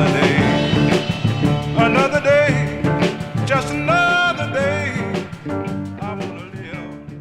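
Background music: a song with drums and a pitched lead line, fading out toward the end.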